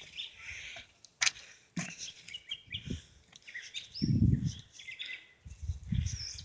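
Small birds chirping in short, scattered calls, broken by a sharp click about a second in and two dull low rumbles on the microphone near the end.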